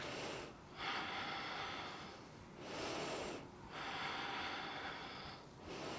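A woman's slow, audible breathing close to a clip-on microphone: about four or five breaths in and out, the longer ones lasting a second or more, with short pauses between.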